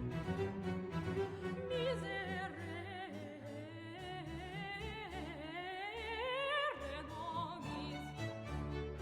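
Background music: an operatic-style melody sung with wide vibrato, climbing to a held high note, over a beat that drops out in the middle and returns near the end.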